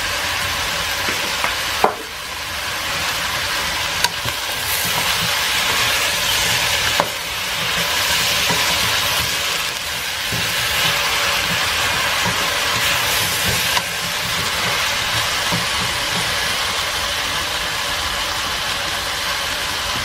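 Sweet potato and leek chunks sizzling in a stainless steel pot while being stirred with a wooden spoon, with a steady hiss throughout and four sharp knocks of the spoon against the pot.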